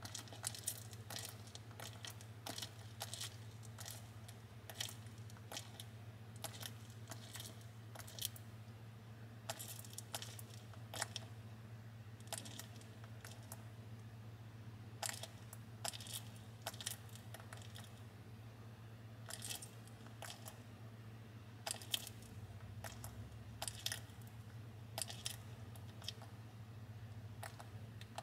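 Bearded dragon eating a hissing cockroach: scattered crisp clicks and crunches of chewing and swallowing, irregular and a few sharper ones now and then, over a steady low hum.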